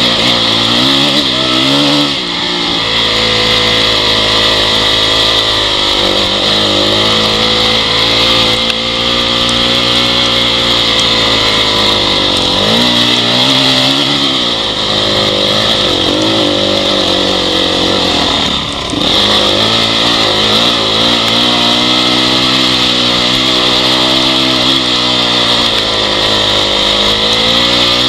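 Honda CRF dirt bike's four-stroke single-cylinder engine running under load, its pitch rising and falling as the throttle is opened and closed, with brief drops about two seconds in, around the middle and about two-thirds through.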